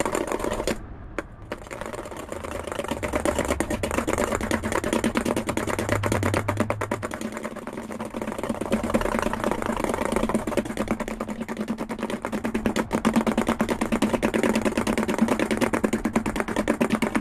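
Metal spoon beating rapidly against a stainless steel bowl, a fast run of clicks and scrapes, as coffee, sugar and hot water are whipped by hand into a foam. The beating pauses briefly about a second in.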